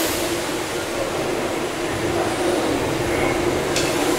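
Gimson steam beam engines running together: a steady mechanical sound of working steam machinery, with a single sharp knock near the end.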